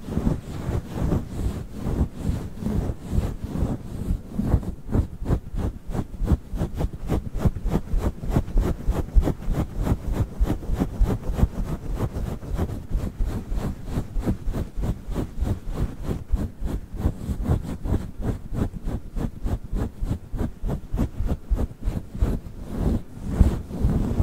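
Fluffy furry microphone cover being rubbed and scratched right against the microphone: a dull, muffled swishing in quick, even strokes, several a second.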